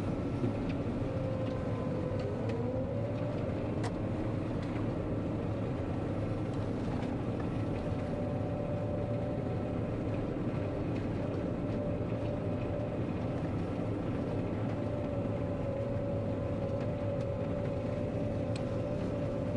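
John Deere 9500 combine running steadily, with one tone in its hum rising in pitch about two to three seconds in and then holding.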